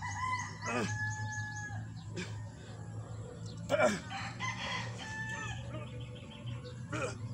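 A rooster crowing twice: a long call at the start and another about four seconds in.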